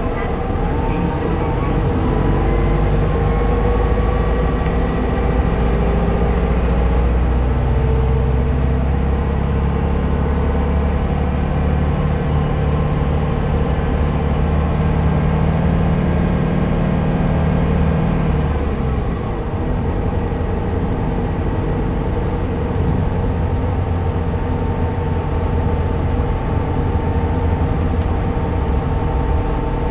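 Keio city bus running on its route, heard from aboard: engine and drivetrain hum with tyre and road rumble. The engine pitch glides in the first seconds, the low rumble is strongest through the middle and eases about two-thirds of the way in, then the run goes on steadily.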